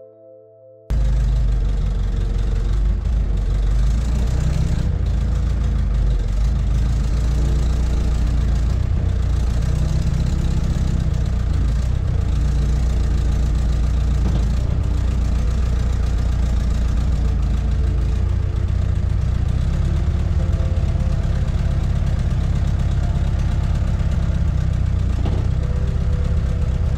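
Ostrówek K-162 loader's diesel engine running steadily; it cuts in abruptly about a second in, after a moment of soft music.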